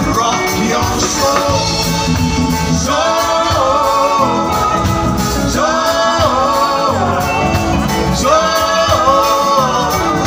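Live band playing with a man singing lead into a microphone and backing singers, over drums, bass, electric guitar and keyboards; the sung phrases come in repeated lines, one starting about three seconds in and others at about six and eight seconds.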